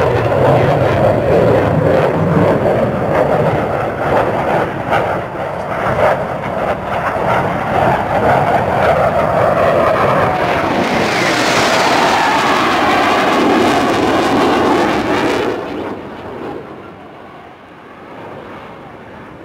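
Twin-engine F/A-18 Hornet jet making a pass: a continuous loud jet roar that swells and grows brighter about eleven seconds in as it goes by. The roar drops away abruptly about sixteen seconds in.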